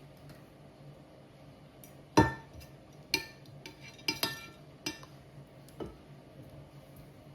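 Kitchen utensils and dishes clinking: about six sharp knocks with a brief ringing after each, the first about two seconds in the loudest, over a faint steady low hum.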